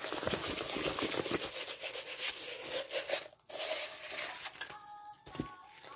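Crinkling and rubbing of a rolled diamond-painting canvas and its plastic cover sheet being handled and unrolled by hand. It comes in two stretches with a brief break about three and a half seconds in, then quieter handling.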